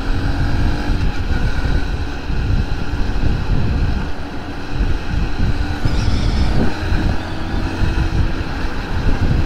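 Honda Monkey's small single-cylinder four-stroke engine running steadily at road speed, mixed with wind noise on the microphone and the tyre and engine noise of surrounding city traffic.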